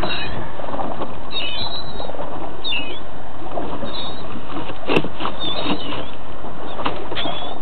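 A shrimp boat's engine runs steadily under a constant rush of wind and water noise. Short, high chirping bird calls come and go several times, and there is a single sharp knock about five seconds in.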